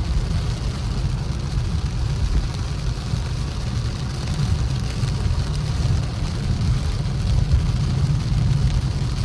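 Car cabin noise while driving in heavy rain: a steady low rumble of tyres on the wet road, with rain hissing on the roof and windshield.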